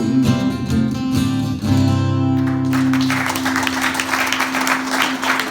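Closing bars of a country-style acoustic guitar song, ending on a held chord. About three seconds in, a dense noisy wash comes in over the chord and runs on.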